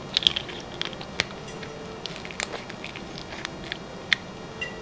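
Close-up crunching and chewing of a piece of crispy-shelled crab, with sharp irregular crackles as the shell breaks between the teeth.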